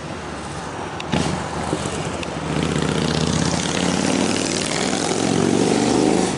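Diesel switcher locomotive's engine running as it pushes a wedge snowplow car along the track at walking pace, the engine note growing louder about two and a half seconds in. A sharp metallic clank comes about a second in.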